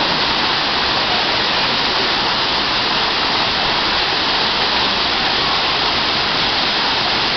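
Waterfall rushing close by: a loud, steady wash of falling water.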